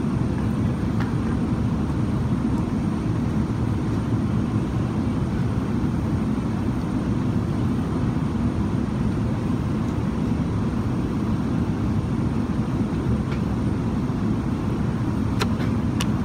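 Steady engine noise heard inside a passenger airliner's cabin, with a couple of faint clicks near the end.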